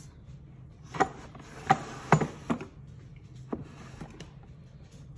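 Metal fidget spinners clicking against each other in a wooden tool-chest drawer, and the drawer being pushed shut and the next one pulled out. There are four sharp knocks in about a second and a half, then one more a second later.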